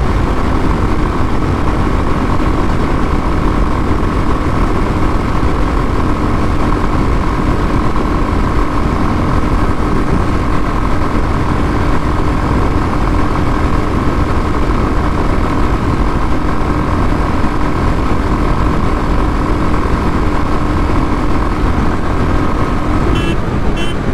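Royal Enfield Classic 350's 349 cc single-cylinder engine held flat out at its top speed of about 120 km/h, a steady unchanging drone under heavy wind rush. The needle will not climb any higher. The steady engine note stops near the end.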